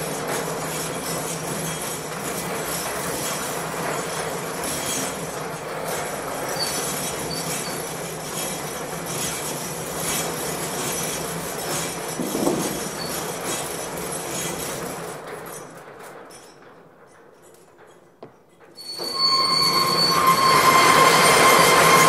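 Metal roller shutter rolling: a long, steady metallic rattle that fades out about fifteen seconds in. After a few quieter seconds, a louder noise starts near the end, carrying two steady high tones.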